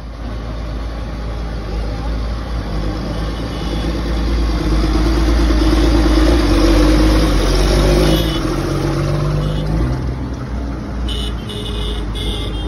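Large diesel tractors drive slowly past in procession, engines running and tyres hissing on a wet road. A rubber-tracked tractor passes closest and loudest about five to eight seconds in. A few short high toots sound near the end.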